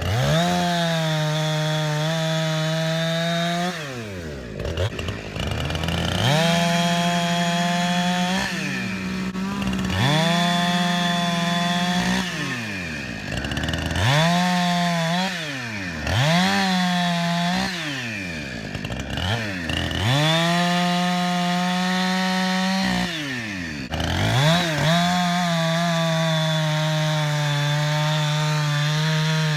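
Two-stroke chainsaw revved to full throttle about seven times. Each time it is held for a few seconds, then drops back toward idle, with its bar-tip sprocket freshly greased.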